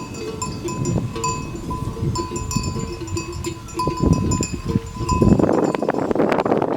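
Metal bells on grazing water buffalo clanking over and over with a ringing tone. From about five seconds in, a louder rough rustling noise joins in.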